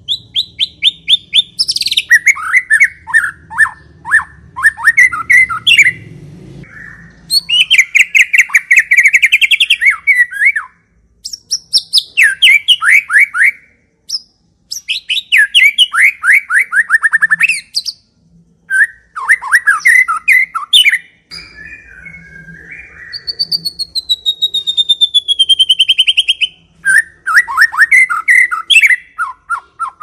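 White-rumped shama (murai batu) singing loudly: a string of varied phrases, each a rapid run of repeated chirping notes, with short pauses between them. About three-quarters through comes one long falling whistled note.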